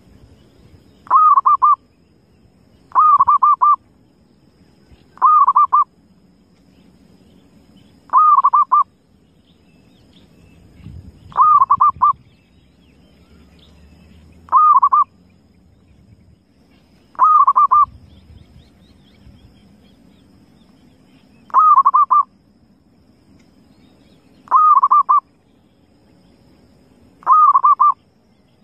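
Zebra dove (perkutut) cooing: ten short calls, each a quick run of ringing coos, repeated every two to three seconds.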